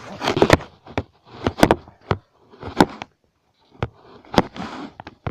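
Irregular handling noise: a dozen or so sharp clicks and knocks with short bursts of rustling, as objects are picked up and set down on a table.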